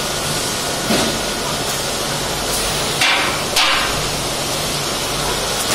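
Three sharp knocks, about a second in, at three seconds and just after, as steel beams of a boltless rivet shelf are struck to seat their rivets into the keyhole slots of the uprights, over a steady background hiss.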